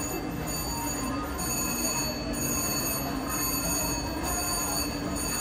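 Slot machines on a casino floor: a steady wash of electronic chimes and held tones, with a faint pulse that repeats about once a second.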